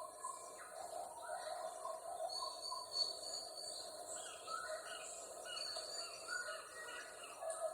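Rainforest ambience: several birds calling and chirping over one another, above a steady high-pitched insect hum.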